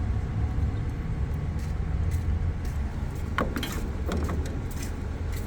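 Steady low rumble of street traffic, with a short cluster of clicks and rattles about three and a half seconds in and another near five seconds.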